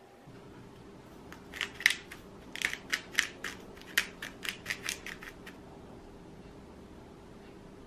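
Hand-turned pepper mill grinding black peppercorns: a run of sharp, uneven crunching clicks, several a second, starting about a second in and stopping a little past halfway.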